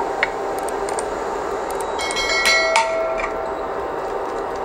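A stainless steel plate clinks and rings briefly about two and a half seconds in, over a steady hiss. Light knocks of a wooden spoon against the wok and its vegetables.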